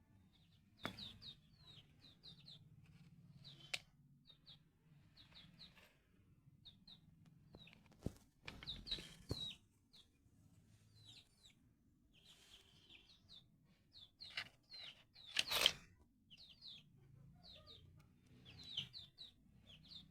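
Birds chirping: many short, high, falling chirps repeated irregularly. A few scattered clicks and knocks come through, the loudest about three-quarters of the way through.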